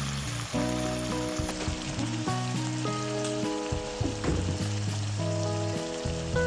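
Food sizzling as it fries in a pan, under background music with held, steady notes.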